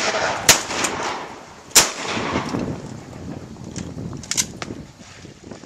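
Shotgun blasts: two loud shots, about half a second and just under two seconds in, then a few fainter sharp cracks near the end.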